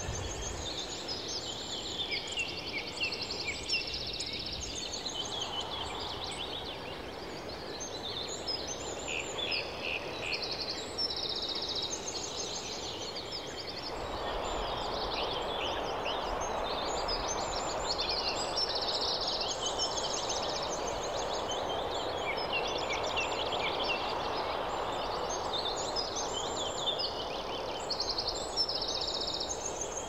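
Several small songbirds singing and calling over one another in short, repeated trills and chirps. Beneath them is a steady rushing background that grows louder about halfway through.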